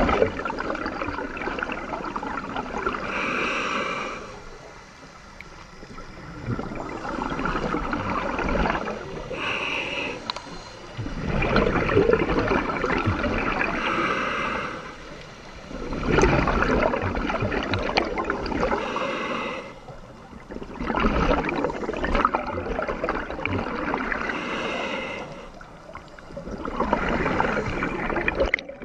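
Scuba diver breathing through an Aqua Lung Titan regulator: an inhale through the regulator, then a rush of exhaled bubbles, repeating about every five seconds.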